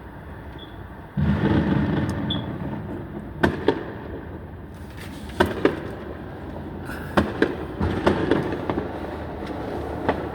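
Neighborhood fireworks going off: a sudden loud boom about a second in that rumbles on, then sharp pops and cracks, mostly in quick pairs, every couple of seconds.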